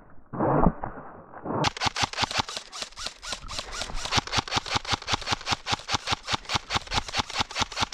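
Airsoft rifle firing a long string of rapid shots, about six a second, as sharp evenly spaced cracks.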